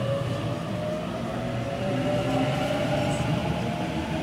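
Sydney Trains double-deck electric train passing close by at low speed: a steady rumble of wheels on rail under a whine from its traction motors that rises slightly in pitch.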